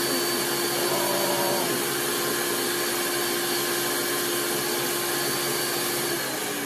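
Kitchen blender motor running steadily at high speed with a constant hum, then switched off near the end and starting to wind down.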